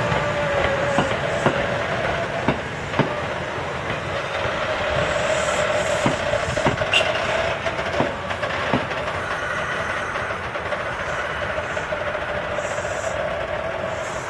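Kintetsu 2400 series electric train rolling slowly past. Its wheels clack irregularly over the rail joints and points, with a steady whine underneath. The clacks thin out after about nine seconds as the last cars go by.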